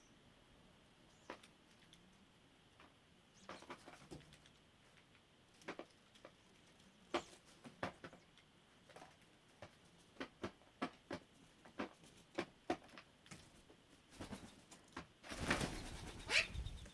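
Birds pecking at dry dog food, making irregular sharp taps about once or twice a second. A louder rushing noise lasts about a second and a half near the end.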